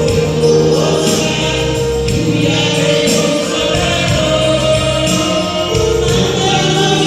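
A Pentecostal hymn sung by several voices over instrumental accompaniment, with long held notes and a steady bass line.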